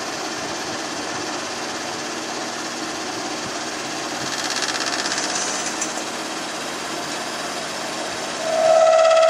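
CNC turn-mill lathe running, a steady mechanical whir that grows louder and brighter for a couple of seconds around the middle. About a second before the end, a loud steady tone with overtones sets in.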